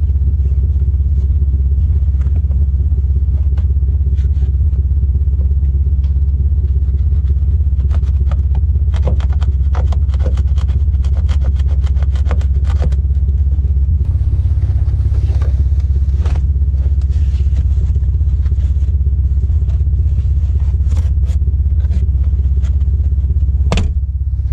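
Clicks, knocks and scraping from the Nissan 350Z's plastic sun visor and headliner trim being worked loose and pulled down by hand, in clusters through the middle and later part, over a loud steady low rumble.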